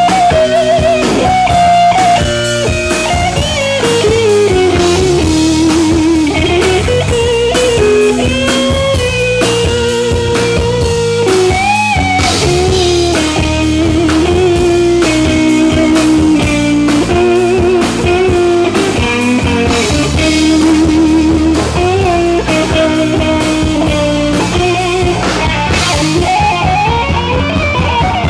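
Rock band playing live: a lead guitar solo with bent notes and vibrato over bass and a drum kit.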